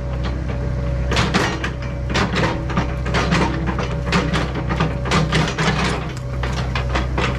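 John Deere 85G excavator's diesel engine running steadily under load, with frequent irregular clanks, knocks and creaks as the bucket works a large tree stump up out of a trench.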